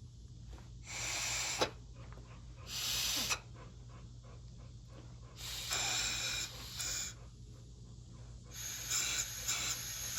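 Four short bursts of hissing air, each lasting roughly half a second to a second and a half, a few seconds apart.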